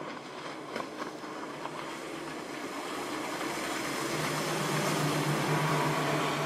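Four Mercury 250 HO outboard motors on a 39-foot Midnight Express patrol boat running at high speed, with the rush of water off the hull. The engine drone grows steadily louder and is loudest from about four seconds in as the boat passes close by.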